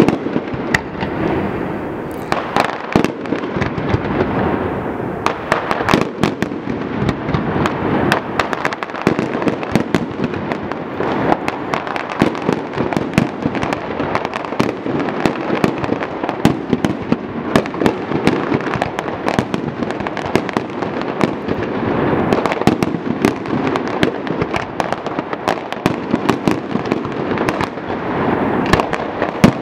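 Aerial fireworks bursting in quick succession: many sharp bangs over a dense, continuous crackle.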